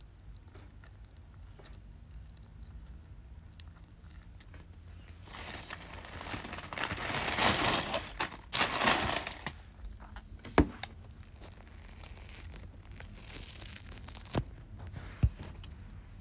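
Thin dry spring roll wrapper crinkling and crackling as it is folded and rolled by hand around a filling, loudest for about five seconds in the middle. A few sharp taps follow.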